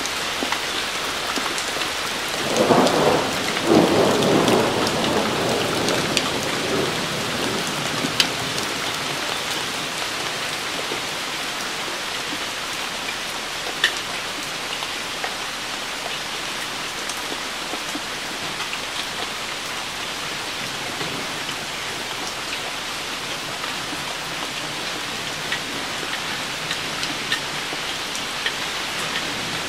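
Steady summer rain falling on leaves and the ground, with a rumble of thunder starting about two and a half seconds in and fading over several seconds. A few sharp drip taps stand out, the clearest about 8 and 14 seconds in.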